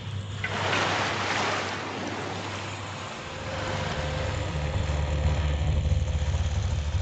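Sea water rushes and washes loudly for a couple of seconds. Then the low rumble of a boat engine builds from about three and a half seconds in.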